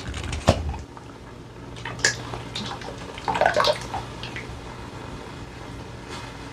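Liquid sloshing and splashing as a passata bottle is rinsed out with water, with a couple of sharp knocks of the bottle near the start.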